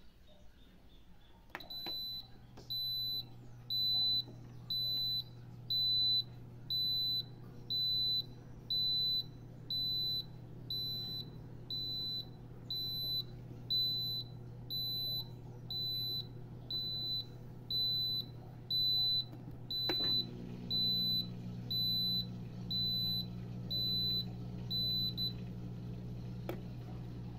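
Consul Bem Estar evaporative air cooler beeping: one high-pitched electronic beep about every second, repeating over and over, until it stops near the end. The beeping is the fault the owner sets out to fix. Under it runs a low steady hum that gets louder after a click about twenty seconds in.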